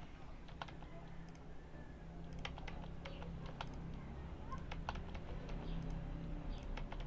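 Computer keyboard keys pressed in scattered, irregular clicks over a steady low hum.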